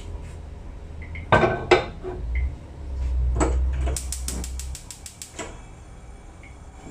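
A pot knocking twice against a hard surface, then a gas stove's igniter clicking rapidly, about eight clicks in just over a second.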